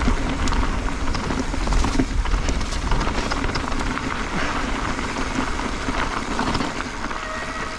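Mountain bike descending a dirt and loose-gravel trail: tyres crunching over stones, with constant clicks and rattles from the bike, under a heavy low rumble of wind on the microphone.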